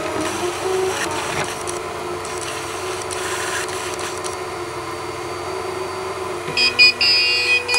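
CTC 3D printer running, its stepper motors whining in tones that shift pitch over a steady hum. About six and a half seconds in, the printer plays a run of loud, high electronic beeps, signalling that the print is finished.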